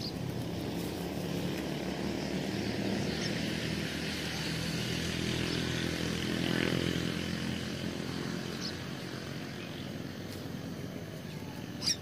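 An engine passing by, growing to its loudest about six and a half seconds in and then fading. A few short bird chirps sound over it, the loudest near the end.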